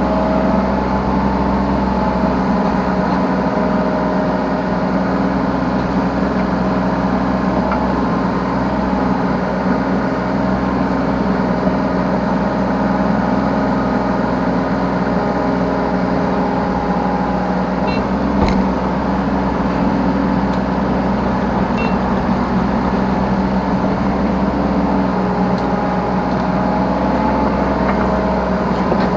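Yanmar B3 Sigma 3-ton mini excavator's diesel engine running steadily under work, heard from the operator's seat, with higher tones that come and go as the machine works and a single knock a little past halfway.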